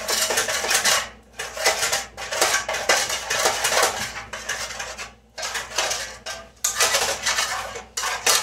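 A spoon scraping and clinking against a baking pan as butter is spread around it, in a run of rough strokes broken by a few short pauses.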